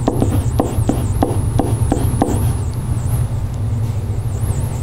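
Marker pen tapping and scratching on a whiteboard in short quick strokes, about eight ticks over the first two seconds, then stopping. Under it a steady low hum and a high thin whine that wavers up and down throughout.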